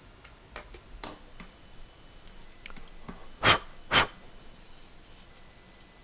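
Plastic parts of an opened computer mouse being handled: a few light clicks, then two loud sharp clicks about half a second apart a little past the middle.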